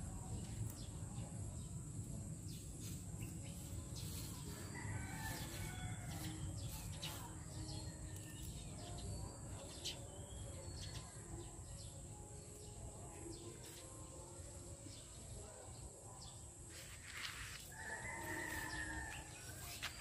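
A rooster crowing, most clearly in one long crow near the end, over a steady high insect drone and a low rumble of wind.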